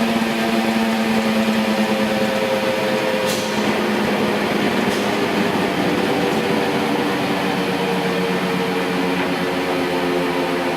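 1979 Blanchard model 2242 rotary surface grinder running: a steady machine hum from its 50 hp wheel motor and spinning wheel over a noise haze, with two sharp ticks about three and five seconds in.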